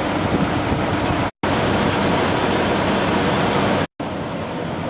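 Loud steady hiss with an engine-like hum beneath it. The sound cuts out completely for a moment twice, about a second and a half in and again about four seconds in.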